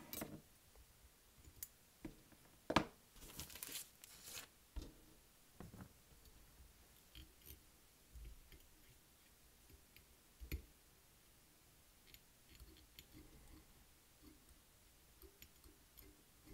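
Faint handling sounds of fly tying at the vise: thread being wrapped over lead wire on a hook, with scattered small clicks and rustles. One sharper click comes about three seconds in, followed by a short rustling burst.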